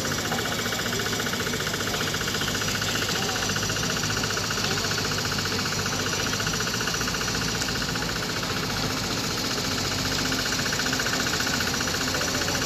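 An engine running steadily with a fast, even knocking pulse.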